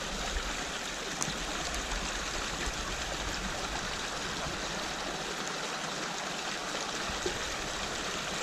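Small mountain stream running steadily, a continuous trickling rush of water.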